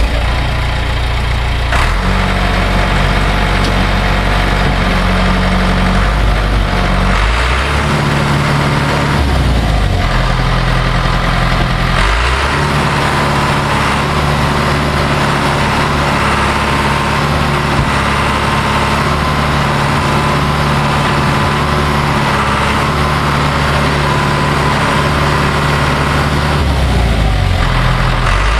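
John Deere 550G crawler dozer's diesel engine idling, its note stepping up and down a few times, around two, seven, twelve and twenty-seven seconds in.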